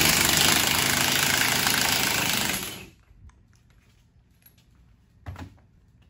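Impact wrench running for nearly three seconds, spinning the locking nut off the golf cart's splined steering shaft, then stopping. A single knock follows about five seconds in.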